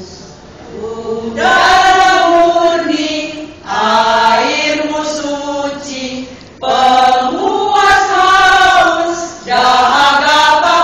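Women's choir singing together, in phrases of two to three seconds with short breaths between them, coming in after a quieter first second or so.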